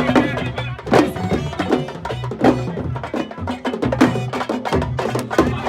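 Music with busy, fast percussion, many sharp strikes a second, over a repeating bass line.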